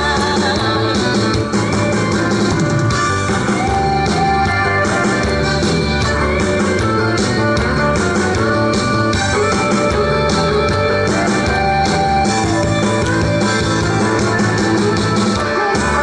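Korean trot song played loud through a PA system: a backing track with a steady beat, with a woman singing over it in places.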